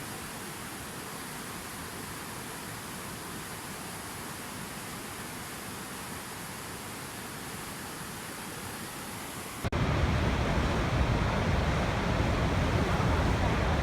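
Waterfall's rushing water, a steady even rush; about ten seconds in it cuts suddenly to a louder, deeper rush.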